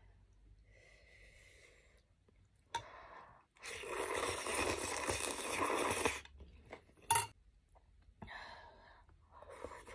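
Noodles in spicy broth slurped loudly for about two and a half seconds near the middle. There is quieter chewing and mouth noise around it, and a sharp click shortly after the slurp.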